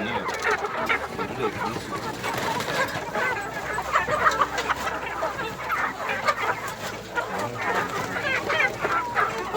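A flock of chickens clucking, many overlapping calls without a break, as the birds are fed in the coop.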